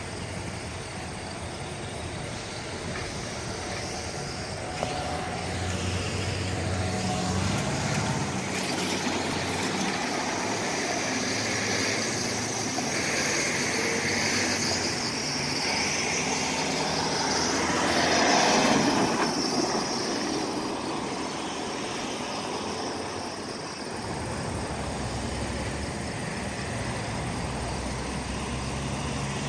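Road traffic at a railway level crossing: cars and SUVs drive over the tracks one after another, with a steady hiss of tyres. The loudest pass comes a little past halfway.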